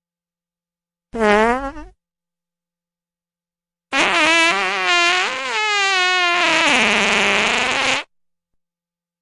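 Two farts: a short one about a second in with a dipping pitch, then a long one about four seconds in that wavers up and down in pitch for some four seconds and turns raspy in its last part.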